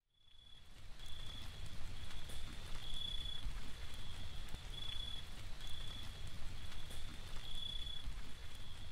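A low steady rumble with a short, high-pitched chirp that repeats at one fixed pitch about every half to three-quarters of a second, fading in at the start.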